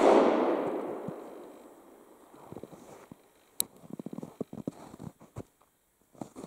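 The tail of a black-powder .32 rimfire shot from a Smith & Wesson tip-up revolver, fired a split second before, echoing away over about two seconds. About three and a half seconds in comes one sharp, much quieter click, followed by lighter clicks and handling noise.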